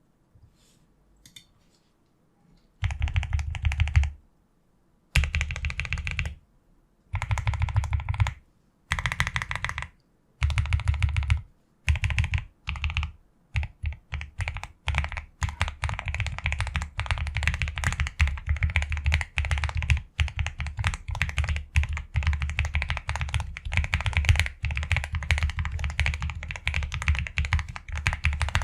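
Typing on a Qwertykeys QK65 custom mechanical keyboard with Akko POM Silver switches, a POM plate and painter's tape on the PCB. Short bursts of fast keystrokes separated by pauses give way, about halfway through, to continuous fast typing.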